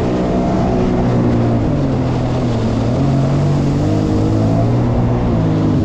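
Jet ski engine running under way at speed, its pitch shifting a little as the throttle changes.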